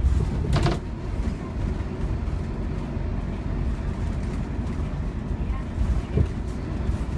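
Scania K230UB Omnilink bus's rear-mounted five-cylinder diesel engine and driveline running under way, heard from inside the passenger saloon as a steady low rumble. A brief rattle stands out about half a second in.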